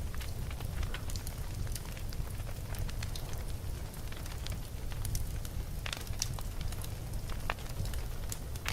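A fire burning steadily, with a low rumble and frequent irregular sharp crackles and pops.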